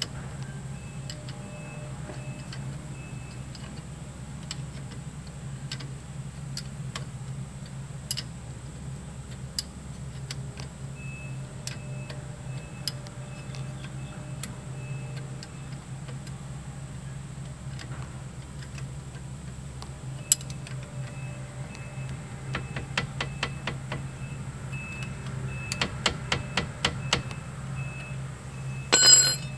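Hand tools working on brake parts: scattered sharp clicks and ticks over a steady low hum, with a run of quick, evenly spaced clicks near the end and a brief louder rattle just before the end.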